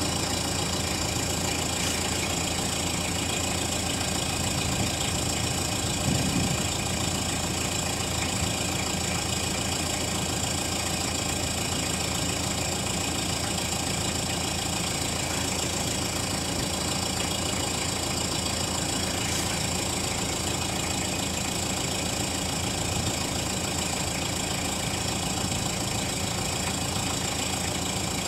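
Toyota 1KZ-TE 3.0-litre four-cylinder turbodiesel idling steadily close to the tailpipe, shortly after a cold start, with a small swell about six seconds in.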